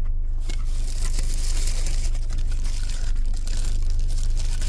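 Close crinkling and crunching from a fast-food paper bag and crispy Burger King hash bites being handled and eaten, over a steady low hum.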